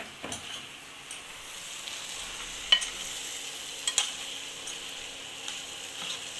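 Chicken and onion masala sizzling as it fries in a pan while it is stirred, with a few sharp clicks of the spoon against the pan, the loudest about halfway through.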